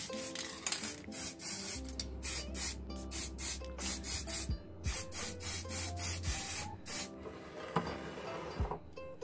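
Aerosol spray paint can hissing in short repeated bursts, about two a second, as paint is sprayed onto knife parts; the bursts stop near the end.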